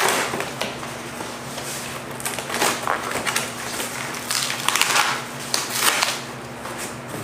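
Cardboard packaging being handled and pulled apart as grill parts are unpacked, with irregular rustles and scrapes, louder about two to six seconds in. A box fan hums steadily underneath.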